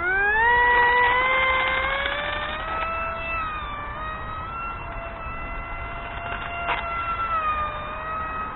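Hubsan F22 RC airplane's electric motor and propeller spinning up on a takeoff run: a whine that climbs in pitch over the first couple of seconds, then holds high and steady while slowly growing fainter, dipping in pitch near the end. A single sharp tick about two-thirds of the way through.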